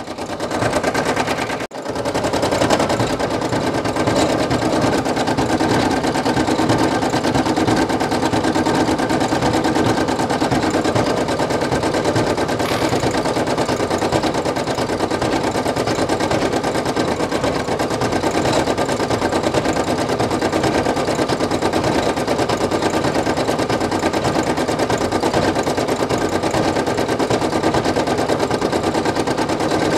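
Brother PE800 embroidery machine stitching out a design at speed: a steady, rapid clatter of the needle and hoop drive, with a brief break near the start.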